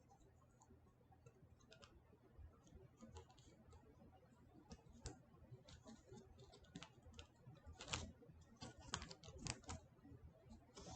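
Faint, irregular clicks and crinkles of hands handling and unwrapping a new phone from its slippery plastic wrap, busier in the second half.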